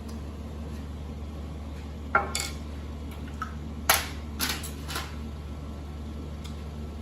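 Small metal and plastic parts of a VCR clinking and knocking as they are handled and pried apart with a screwdriver. There are about five sharp clicks: two a little after two seconds in, and three between four and five seconds in, the first of these the loudest.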